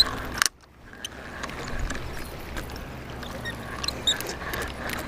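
Shallow seawater sloshing around a wading angler's legs, with scattered light clicks. The sound drops out almost completely for about half a second near the start.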